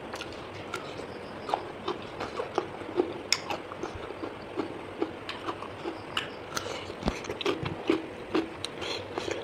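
Eating sounds: chewing, with irregular crisp clicks several times a second.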